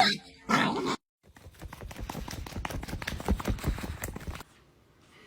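A quick, irregular run of taps and clicks lasting about three seconds, stopping abruptly near the end.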